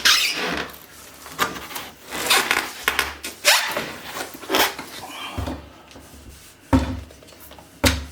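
Printer parts being worked out of a large cardboard box and its packing: irregular rubbing and scraping with scattered knocks, and two heavier thumps near the end.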